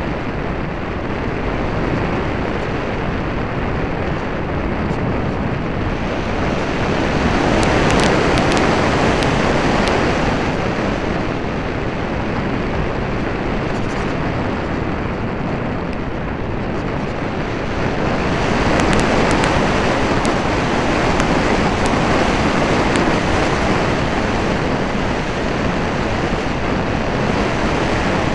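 Wind rushing over the microphone of a small keychain camera riding on a radio-controlled airplane in flight: a steady, loud roar of noise that swells twice, about a third of the way in and again about two-thirds through.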